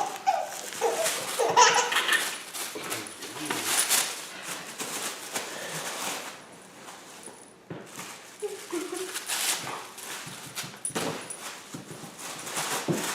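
A baby laughing in short bursts, mixed with sharp clicks and knocks.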